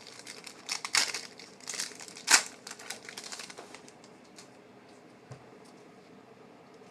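Trading-card pack wrapper crinkling as it is handled and torn open, with one sharp snap about two seconds in; the rustling dies away after about four seconds.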